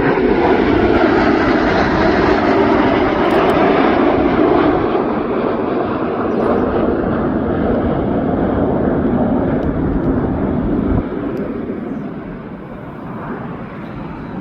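Red Arrows BAE Hawk T1 jets passing with a loud, steady jet rush. A whine falls in pitch over the first few seconds as they go by, and the noise drops about eleven seconds in and fades as they fly away.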